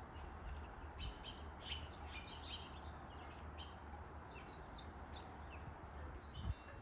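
Small songbirds at a feeder chirping, many short calls overlapping one after another, over a low wind rumble on the microphone.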